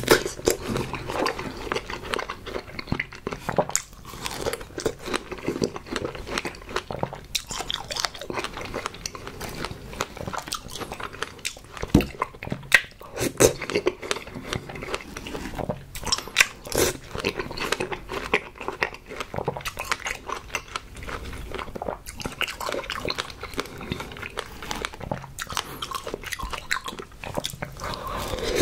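Chewing and biting of fresh strawberries with whipped cream: wet mouth sounds with many short, irregular clicks and smacks.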